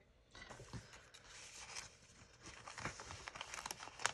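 Paper rustling and crinkling with small irregular clicks, as the pages of a handmade paper journal and a loose paper insert are handled.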